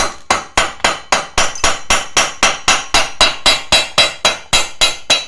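Rapid, even hammer blows on the metal of a brushcutter's small two-stroke engine, about five a second, each with a short metallic ring. The engine parts are stuck together with glue and are being knocked loose.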